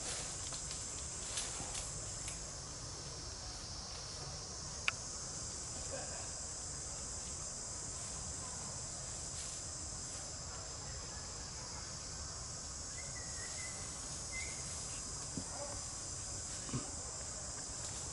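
Steady high-pitched chirring of insects in the forest trees, with a few scattered faint clicks, the sharpest about five seconds in.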